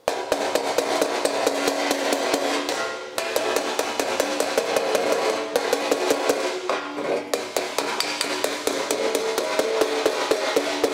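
Body hammer tapping rapidly on a sheet-metal motorcycle fender backed by a dolly, about five blows a second, each ringing with a metallic tone, as a crease is worked out of the panel. The hammering pauses briefly about three seconds in and again around seven seconds.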